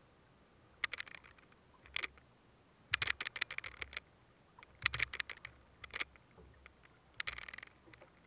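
Fishing handline hauled in hand over hand, scraping and rasping against the boat's edge and the hands in short bursts about once a second.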